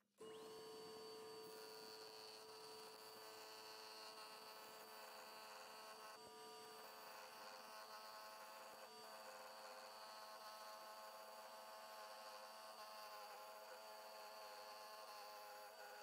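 Small variable-speed wood lathe motor switched on about a quarter second in, spinning up almost at once and then running with a steady whine of several even tones. Later, the spinning canary wood blank is being cut with a carbide turning tool.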